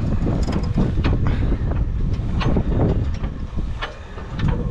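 Wind buffeting the microphone, with irregular clicks from the Frontier OS27 sawmill's hand winch as the saw head is wound up.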